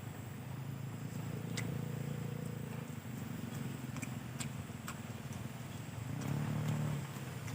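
Close-up eating sounds: chewing with scattered wet mouth clicks, over a low steady hum that swells briefly near the end.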